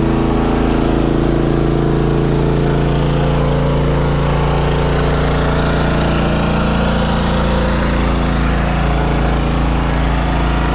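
Westinghouse iGen4500DF dual-fuel inverter generator's single-cylinder engine running steadily on propane under a load of about 2,590 watts.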